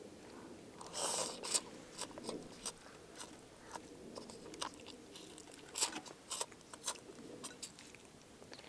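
Irregular crunches and sharp little clicks at close range, with a brief rustle about a second in.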